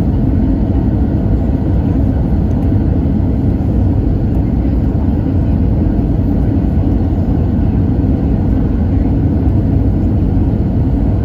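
Steady low rumble of an Airbus A320-200 heard from inside the passenger cabin in flight: engine and airflow noise.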